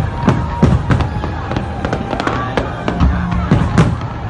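Aerial fireworks bursting: an irregular run of sharp bangs and deeper booms, several each second.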